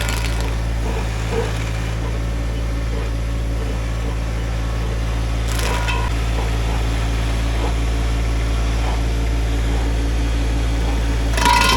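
Tractor engine running steadily, driving the Stump Buster stump grinder's 24-inch carbide-toothed disc with little cutting. There is a brief grinding burst about halfway, and the louder grinding with a whine comes back near the end as the disc bites into the stump again.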